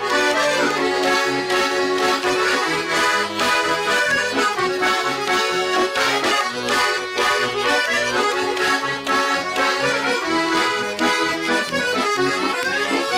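Bayan (Russian button accordion) playing an instrumental Russian folk tune: a melody over a steady, rhythmic bass-and-chord accompaniment.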